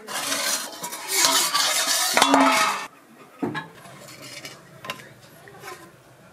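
Steel cookware clattering: the steel plate used as a lid and the spatula clanking against the steel kadai for about three seconds, then stopping abruptly. A few lighter knocks of a steel ladle stirring the thick egg curry follow.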